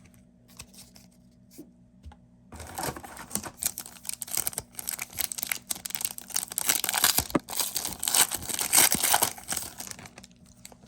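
The foil wrapper of a trading-card pack being torn open and crinkled, starting about two and a half seconds in and loudest toward the end, after a few light clicks of cards being handled.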